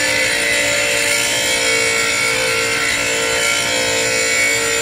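DeWalt DW758 bench grinder with a square mild-steel blank pressed against its wheel, grinding a lathe tool bit to shape. A steady grinding hiss over the grinder's even hum, with no breaks.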